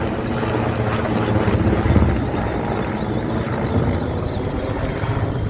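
Helicopter running, a steady rotor and engine noise.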